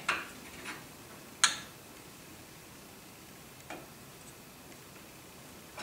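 Scattered light metallic clicks as steel-backed brake pads are shifted and lined up by hand in a C3 Corvette's rebuilt four-piston front caliper, the loudest about a second and a half in.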